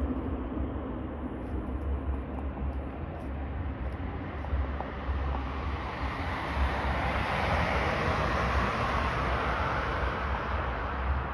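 Aircraft engine noise swelling as a plane passes, building over several seconds to a peak near the end, over a steady low rumble of wind on the microphone.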